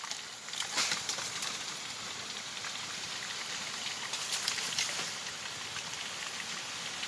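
Steady hiss of water, rain or running water, with scattered short ticks and crackles.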